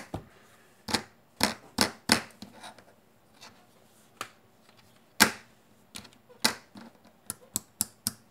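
Small rocker switches on a bare USB hub circuit board clicking as they are flipped on and off, in irregular sharp clicks with a quicker run near the end. The switches are being worked to chase their intermittent contacts. A single louder click or knock comes about five seconds in, while the board is handled.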